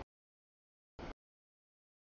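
Audio cutting out to dead silence, broken about a second in by a brief burst of steady noise from an autorack freight train rolling past.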